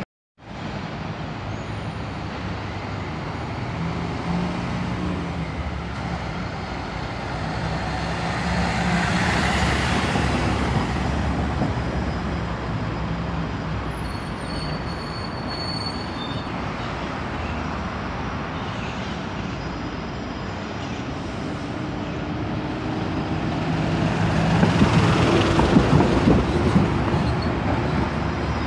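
Diesel city buses running through a bus terminal: a steady engine drone that rises as one bus passes about a third of the way in, and rises again, louder, as another pulls past close near the end.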